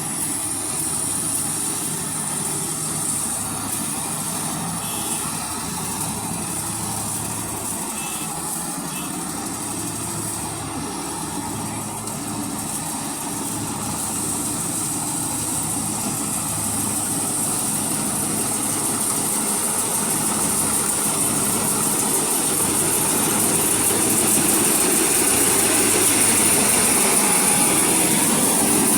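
Maxxi J rice combine harvester running steadily at work, a continuous engine hum with a high whine above it, growing louder through the second half.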